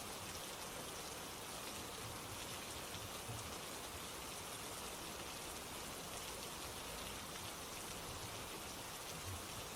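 Steady rain falling, an even hiss of many fine drops patters without a break.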